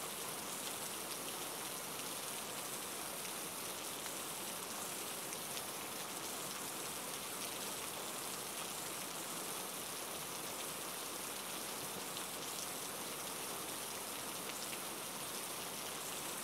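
Heavy rain falling steadily: an even hiss with faint scattered drop ticks.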